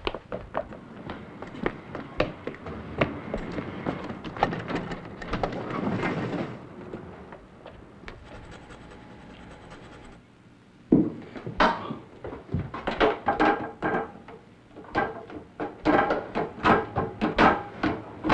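Soundtrack music with a beat of drum-like hits. It thins out to a quiet stretch in the middle, then comes back strongly with an even rhythm about eleven seconds in.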